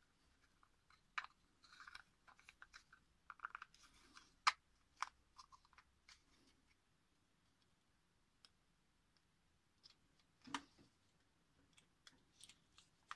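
Faint, scattered clicks and taps of hard 3D-printed plastic RC axle parts being handled and fitted together, with a few sharper clicks now and then.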